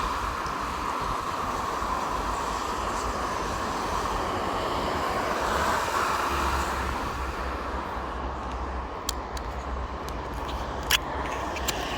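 Steady vehicle noise, an even rumble and hiss, with a few sharp clicks near the end, one louder than the rest.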